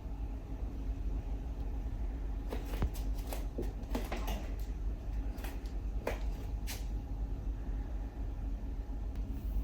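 A few light clicks and short rustles of small objects being handled, mostly in the middle, over a steady low hum.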